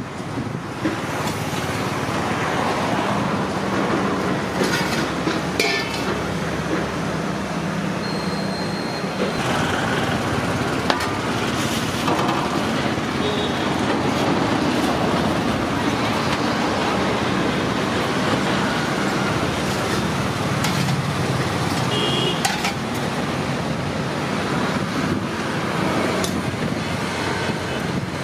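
Roadside traffic noise: vehicle engines running steadily, with a few short clicks and some background voices.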